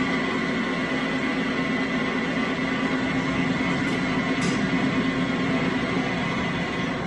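Commercial fully automatic noodle-making machine running: a steady motor drone with a constant low hum and a high whine, dropping off suddenly near the end.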